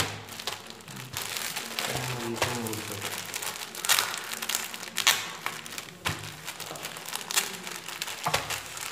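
Thin plastic packaging bag crinkling and crackling as hands press, fold and peel it open around a folded T-shirt, with a few sharper crackles along the way.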